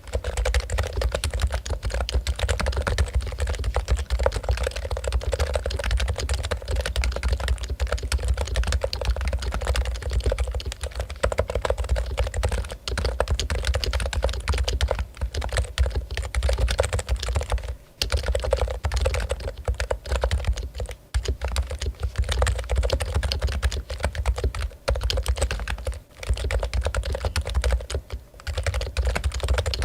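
Fast, continuous typing on a Topre Realforce keyboard with its Topre electrostatic capacitive switches. It breaks off in a few brief pauses near the middle and toward the end.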